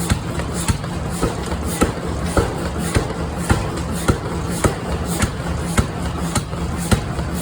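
Forging machinery at work: sharp metal strikes repeating evenly about twice a second over a steady machine hum.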